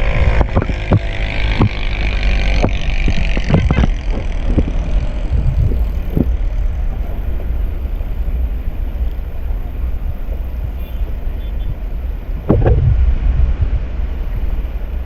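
Motorcycle ridden on a wet, flooded road: a steady low rumble of wind buffeting the microphone over the engine and tyres. In the first few seconds there is a hiss with several sharp knocks, and about twelve seconds in a brief louder bump.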